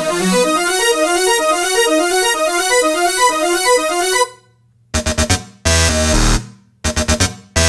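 Background music: a keyboard or synth plays a quick repeating pattern of notes, breaks off about four seconds in, then switches to a beat with heavy bass chopped into abrupt stop-start cuts.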